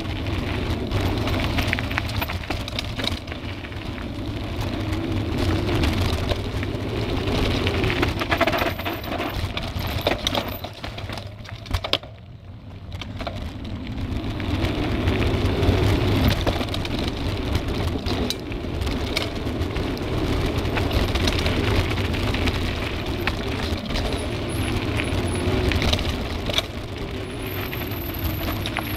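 Mountain bike descending a rough dirt singletrack, heard from the handlebar: a steady low rumble of tyre and wind noise with constant rattling and jangling from the bike over the bumps. About twelve seconds in it goes briefly quieter, then picks up again.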